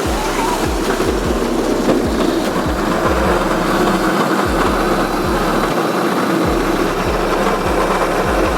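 A vehicle running steadily with engine noise, under a string of low, uneven thumps.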